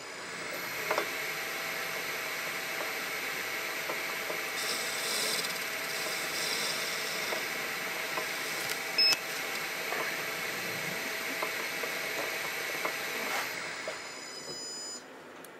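Metal lathe running with its chuck spinning while the tool facing-cuts a small valve-guide blank: a steady machine hum with high tones, a cutting hiss and light ticks. The sound drops about two seconds before the end as the cut finishes, then falls lower again.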